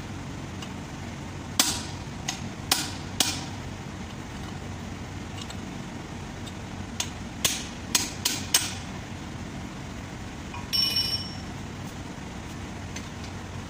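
A hammer strikes a steel drift held in locking pliers to drive the old outer bearing cup out of an Isuzu truck's front wheel hub. The sharp metal-on-metal blows come in two runs of about four and five quick strikes. Near the end there is a brief ringing metallic rattle.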